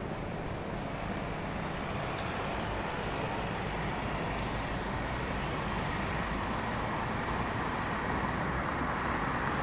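City street traffic: cars driving past a pedestrian crossing, a steady wash of engine and tyre noise that grows slightly louder, with a faint steady high tone through the middle.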